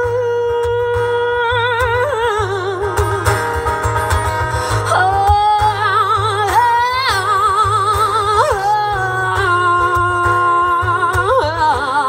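Live band music with acoustic guitar: a singer holds long notes with a wide vibrato, moving to a new pitch every second or two, over a steady low bass and drum pulse.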